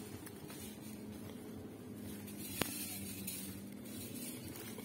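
Raspberry leaves and stems rustling and brushing close to the microphone, with a faint steady hum and one sharp click a little past halfway.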